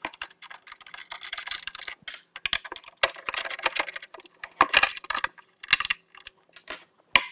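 4 mm Allen key working the small bolts of a motorcycle saddlebag hinge cover: a busy run of light metallic clicks and scrapes, with several sharper clinks.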